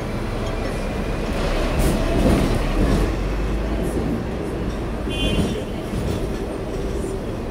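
Hong Kong double-decker electric tram running along its street track, heard from on board: a steady low rumble and rattle of the car and wheels on the rails, with a few sharp clicks and a brief high-pitched tone about five seconds in.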